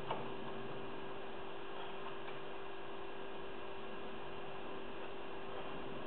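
Steady electrical hum and hiss, with a faint click at the start and another about two seconds in from lock picks working the discs of a 7-disc padlock.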